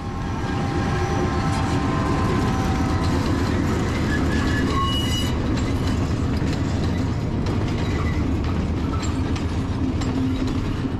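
A train running past at close range: a loud, steady rumble of wheels on the rails that builds over the first second. A short high-pitched tone, likely wheel squeal, sounds about four to five seconds in.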